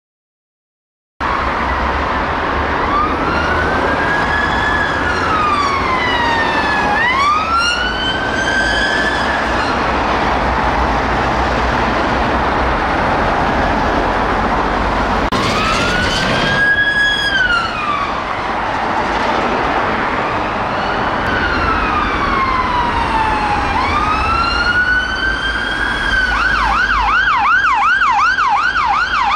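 British emergency vehicle sirens sounding, starting about a second in: slow rising and falling wails, two sirens overlapping at times, switching near the end to a fast yelp of about four cycles a second, over a low rumble of vehicle engines.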